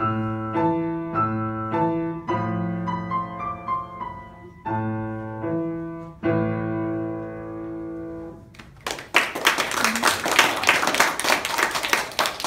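Upright piano playing a piece in A minor, chords under a melody, ending on a held chord that dies away about eight and a half seconds in. A roomful of children then claps.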